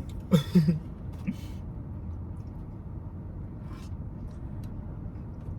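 Steady low rumble, with a short vocal sound just after the start and another about a second in.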